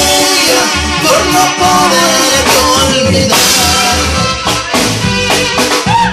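A live band plays a loud instrumental passage of a Latin dance song on electronic keyboards and a drum kit, with held keyboard notes over a steady drum beat.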